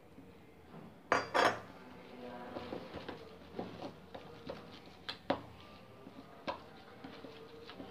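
Steel spoon stirring gram-flour batter in a plastic mixing bowl as water is poured in from a steel bowl, with two loud metal clanks a little over a second in, then scattered clicks and scraping of the spoon against the bowl.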